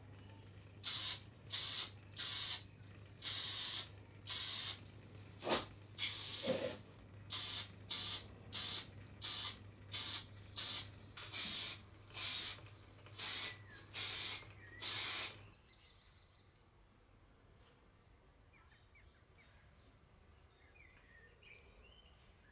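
Aerosol spray paint can fired in about seventeen short bursts of hiss in quick succession, coating the plane parts. A low steady hum runs under the spraying and stops with it about 15 seconds in, leaving faint chirps.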